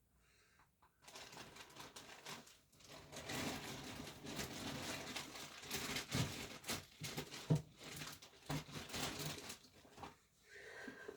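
Rustling and crinkling close to the microphone, a dense run of small crackles and ticks that starts about a second in and stops near the end.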